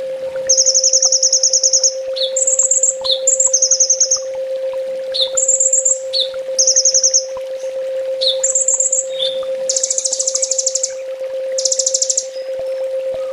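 Kolibri ninja (brown-throated sunbird) singing a bird-training song: high, very rapid trills about a second long, alternating with short down-slurred chips. A steady low hum runs underneath.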